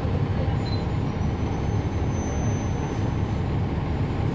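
Cummins ISL9 inline-six diesel of a NABI 40-SFW transit bus, heard from on board, running with a steady low rumble. A faint high-pitched whine drifts slightly upward from about half a second in until near the end.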